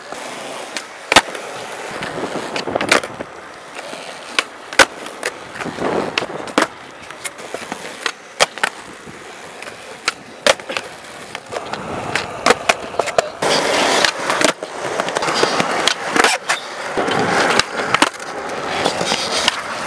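Skateboards on concrete flatground: wheels rolling, with sharp cracks of tails popping and boards landing through a run of flip tricks. The rolling grows denser and louder about two-thirds of the way in.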